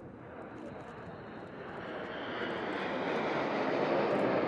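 Jet noise from a formation of four BAE Hawk jet trainers, each with a single Rolls-Royce Turbomeca Adour turbofan, flying overhead. The rushing engine noise grows steadily louder as the jets approach.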